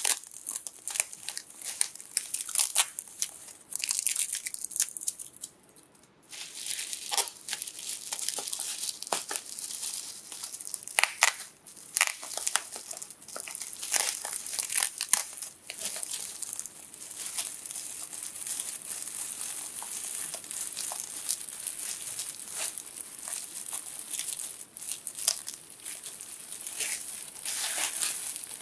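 Plastic bubble wrap being handled and unwrapped by hand: steady crinkling and rustling with many sharp crackles, dropping away briefly about five seconds in.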